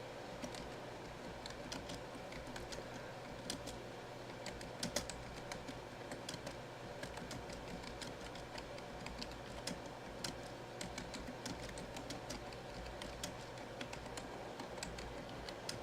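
Faint typing on a computer keyboard: scattered, irregular key clicks over a steady low hum.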